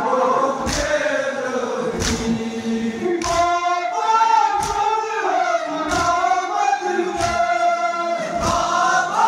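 A group of men chanting a Kashmiri noha, a Shia mourning lament, in unison, with a heavy beat about every 1.3 seconds, the matam chest-beating that keeps time with the chant.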